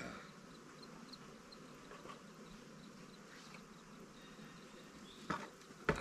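Honeybee swarm buzzing: a steady low hum of many bees flying. Two short knocks near the end.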